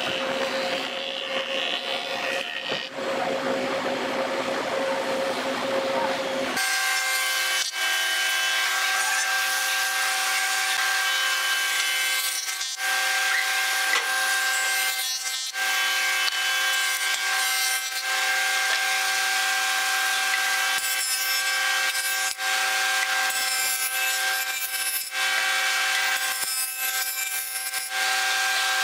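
A jointer planing boards, its spinning cutterhead whining steadily while the knives shave the wood with a rasping hiss. The sound changes abruptly about six seconds in, and the whine becomes steadier from there on.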